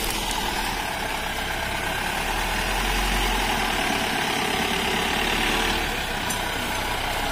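Pickup truck engine running steadily at low speed as the truck wades slowly through deep floodwater, a little louder in the middle.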